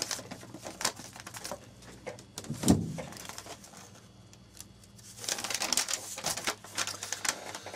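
A sheet of paper being unfolded and handled, rustling and crinkling in two spells, with one short low sound about a third of the way in that is the loudest moment.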